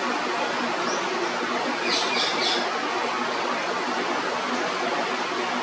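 Steady hiss of falling rain. About two seconds in, a bird gives a quick run of three or four high notes.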